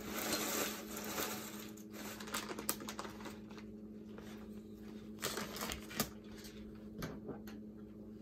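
Tortilla chips poured from a crinkly plastic bag onto a plate, a dense rustle for about the first two seconds, followed by scattered crinkles and light clicks as the plastic bags of chips and shredded cheese are handled.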